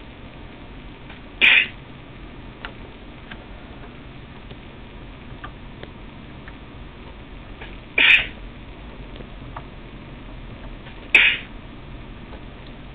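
Three short, sharp sneezes: one about a second and a half in, then two more, three seconds apart, near the end.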